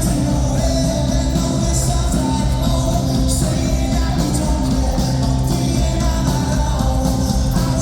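Live rock band playing: electric guitars, bass and drums, with a singer, loud and steady.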